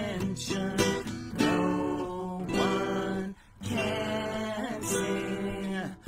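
Two acoustic guitars strummed while two men sing together, with a short break in the sound about three and a half seconds in.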